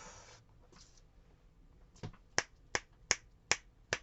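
Six sharp taps or clicks of hard objects, evenly spaced about three a second, starting about halfway in, after a brief faint rustle.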